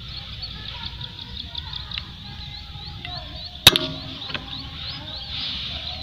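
A single sharp crack of a Sharp Tiger pump-up air rifle firing a little past halfway through, followed by a fainter click. Under it, high chirping calls repeat steadily.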